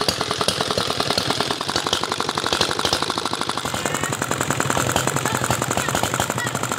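Dompeng R175 single-cylinder diesel engine running with a rapid, even knocking beat, which the mechanic judges not right after the owner's own teardown.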